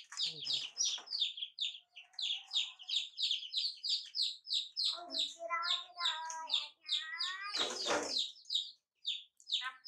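Baby chicks peeping continuously, a rapid string of short high chirps, several a second. A high voice calls out a few times in the middle, with one short loud cry about eight seconds in.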